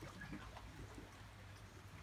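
Near silence: faint outdoor background with a low steady hum and a few faint, brief sounds in the first second.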